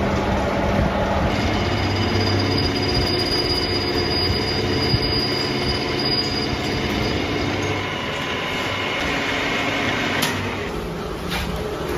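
Metalworking machine tool running, with a steady high-pitched whine and squeal that sets in about a second in and fades about ten seconds in, followed by two sharp knocks near the end.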